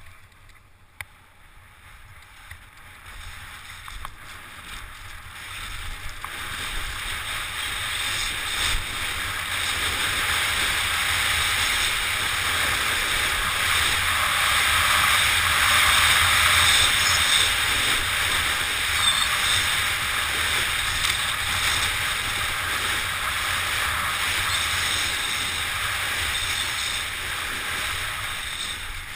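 Wind rushing over a body-worn camera's microphone and skis hissing through snow during a fast descent. It builds steadily over the first ten seconds as the skier gains speed, then holds at a steady rush.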